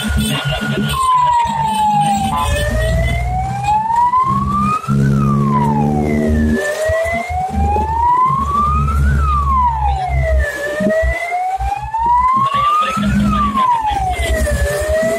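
Electronic siren of a fire-brigade vehicle: a steady high tone drops about a second in, then it wails, sliding slowly up and quickly back down roughly every four seconds. Under it runs the low rumble of the vehicle's engine.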